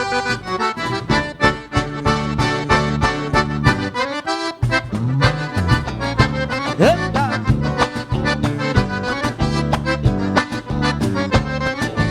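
Band music led by an accordion, playing an instrumental passage with a steady dance rhythm over a bass line, with a short break in the low end about four seconds in.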